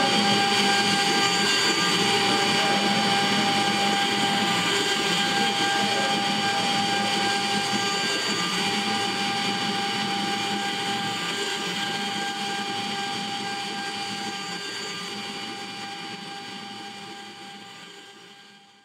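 CNC wood router running, its spindle holding a steady high whine over the noise of a thin carving bit milling a wooden relief icon. The sound fades out gradually over the last several seconds.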